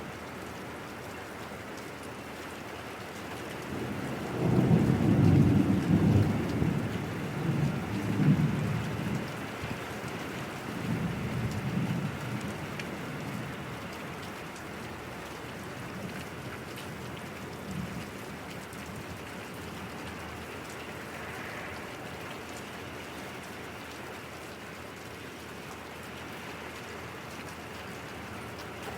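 Steady rain falling, with a long low rumble of thunder rolling in about four seconds in, loudest for a few seconds, then dying away over several more seconds while the rain goes on.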